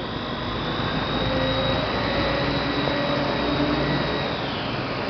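Motor vehicles running in road traffic: a steady engine drone and road noise, with a thin high whine that fades out about four seconds in.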